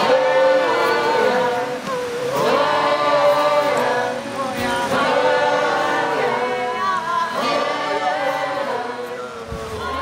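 A group of men and women singing long wordless notes together, many pitches overlapping, with some notes sliding up or down. A low drone comes in just before the end.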